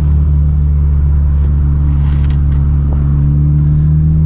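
Honda Civic Si's K24 four-cylinder engine running at a steady cruise with its muffler unbolted, so the exhaust comes through as a loud, even drone, much like a muffler delete.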